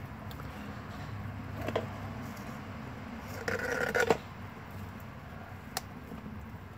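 Blue Bay Shepherd gnawing on a deer leg that is frozen solid: scattered sharp clicks and crunches of teeth on the hard bone and hide, with a short run of scraping clicks about halfway through.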